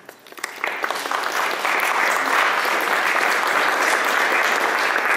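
Audience applauding: scattered claps in the first second build quickly into steady clapping from the whole room.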